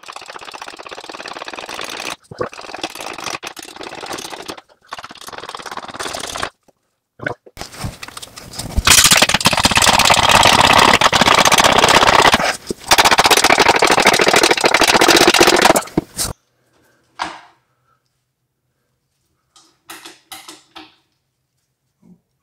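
Hand gear-oil pump on a bottle of automatic transmission fluid being worked steadily, a fast mechanical clattering, as fluid is pumped into the transmission fill hole. It comes in two long stretches, the second much louder, and stops about three-quarters of the way through, leaving only a few small clicks.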